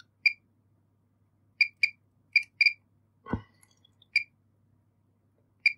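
Fluke 187 multimeter beeper giving seven short, high beeps at irregular spacing, some in close pairs, as the test probes touch the bridge rectifier's pins in diode-test mode. Each short chirp marks a normal forward diode junction, and the bridge tests good.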